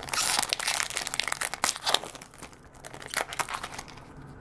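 Foil wrapper of a Pokémon card booster pack crinkling as it is torn open by hand. The crinkling is dense and loudest for the first two seconds, with a few more crackles about three seconds in.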